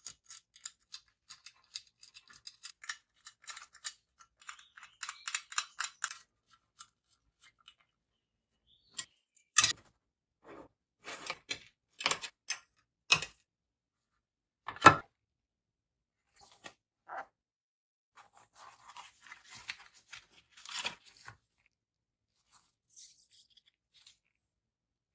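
Small hard parts of a mini PC case being handled by hand. A quick run of fine clicking for the first few seconds, then a few separate sharp clicks and knocks, and light rustling and clicking near the end.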